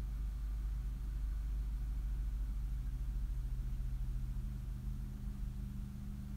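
A steady low mechanical hum, like a motor or appliance running, with a faint steady tone in it that stops near the end.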